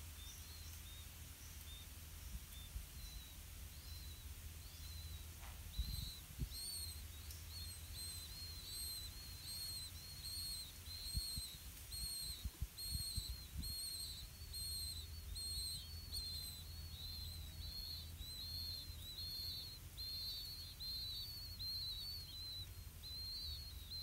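Blue-winged pitta nestlings begging, a steady run of short, high-pitched chirps at about two a second that starts about six seconds in. A few soft low thumps come in the first half.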